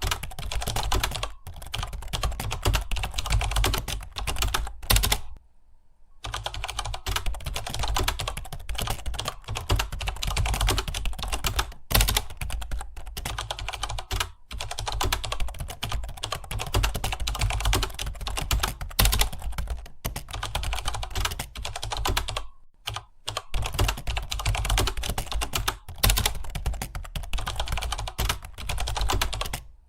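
Fast typing on a computer keyboard: a steady stream of key clicks broken by a few short pauses, the longest about five seconds in.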